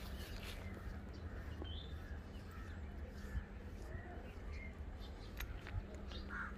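Quiet outdoor background: a steady low rumble with a few faint bird calls, and a couple of soft clicks near the end.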